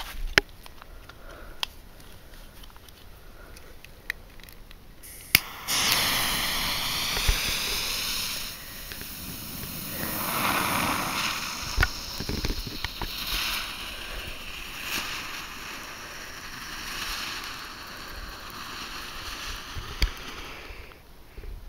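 Weco 'Gold und Silber Regen' firework fountain: after a few sharp clicks, it catches about five and a half seconds in with a sudden loud hiss of spraying sparks. The hiss runs on, swelling and easing, with occasional crackles.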